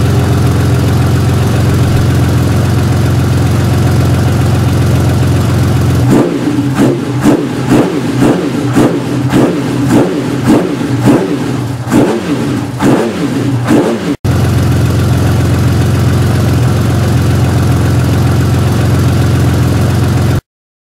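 Honda CBX's air-cooled inline-six engine, its cylinder head freshly rebuilt, idling steadily, then revved in a quick run of throttle blips, more than one a second, for several seconds. After a brief break it idles steadily again, and the sound cuts off near the end.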